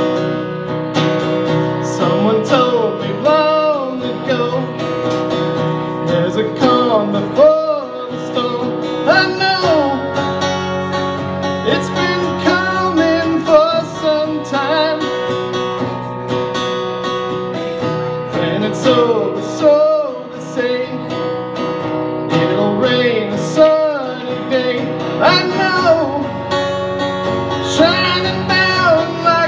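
Live acoustic guitar strumming with a woman singing into a microphone.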